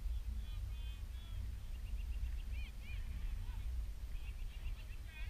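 Wind rumbling on the microphone, with distant birds calling in quick, repeated short calls.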